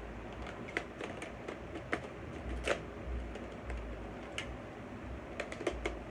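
A dozen or so irregular plastic clicks and taps from handling a camcorder and its battery pack while trying to fit the battery on, over low rumbling handling noise on the microphone.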